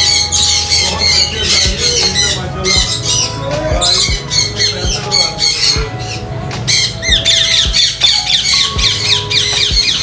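Many caged parrots screeching and chattering at once, a dense, unbroken run of shrill calls, over steady background music.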